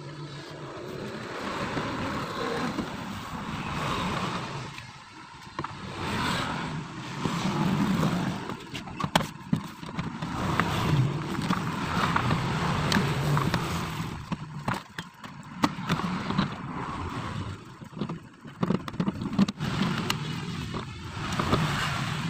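Plastic trim panel being pried off a Hyundai Accent's rear door, with sharp clicks and snaps from its clips and plastic scraping on the door. A steady vehicle hum rises and falls behind it.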